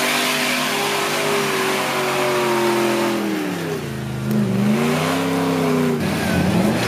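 Off-road 4x4's engine revving under load as it climbs a steep slope, its pitch holding, then dropping sharply and rising again about four seconds in, and shifting once more near the end.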